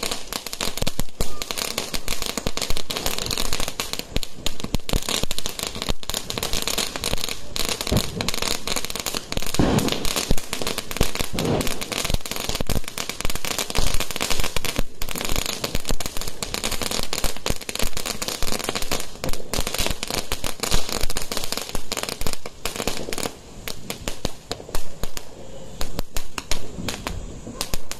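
Fireworks crackling densely and without a break, with handheld sparklers burning and throwing sparks.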